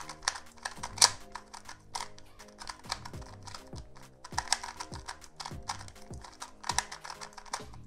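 XMan Flare 2x2 magnetic speed cube being turned in quick runs of moves: a fast patter of plastic clacks as the layers turn and snap into alignment, the loudest about a second in. The cube is dry, without any lube.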